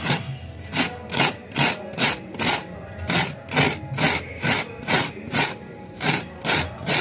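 Halved coconut scraped against a kurani, a toothed coconut-scraper blade, grating out the flesh in quick regular scraping strokes about two a second, with a brief pause twice.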